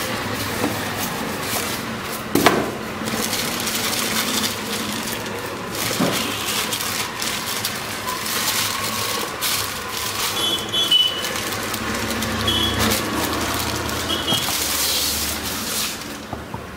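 Thin plastic bag crinkling and rustling as it is worked off an induction cooktop, with a sharp knock about two and a half seconds in.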